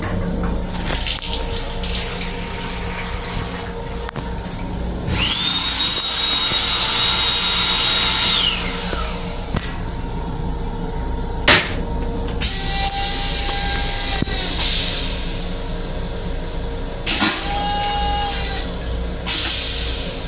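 Restroom fixtures aboard a Long Island Rail Road M7 railcar. A hand dryer starts with a rising whine, runs about three seconds and winds down. Then a click is followed by two short rushing, whirring toilet flush cycles, all over the steady low rumble of the moving train.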